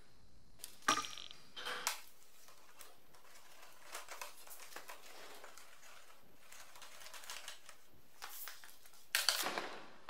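Plastic drip-irrigation tubing and plastic fittings being handled and pushed together: scattered sharp clicks and short scraping rustles, with a louder scraping clatter near the end.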